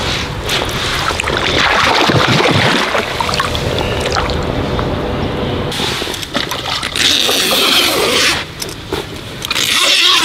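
Water splashing and trickling, with wet mesh fabric of a carp retaining sack rustling and scraping as it is handled.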